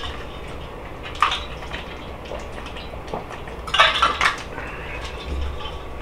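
Someone taking a drink from a water bottle: small clicks and knocks from the bottle and its flip-top lid, with a louder clatter of knocks about four seconds in.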